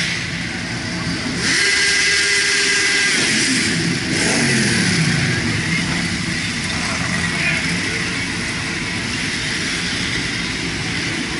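Motorcycles riding past one after another at low speed, their engines running and revving as each passes close. About four seconds in, one engine's pitch falls as it goes by.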